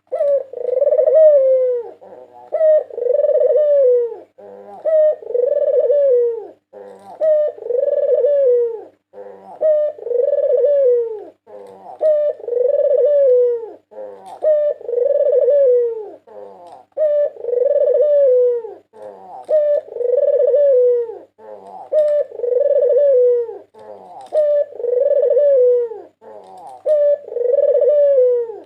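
White Barbary dove (puter putih) cooing over and over in a steady rhythm: each call is a short note followed by a longer, rolling coo that falls in pitch, repeating about every two and a half seconds.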